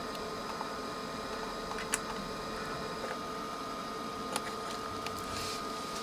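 Steady hiss and faint hum, with two faint small clicks, about two seconds and four and a half seconds in, as a soldering iron works a transformer lead free from a circuit board.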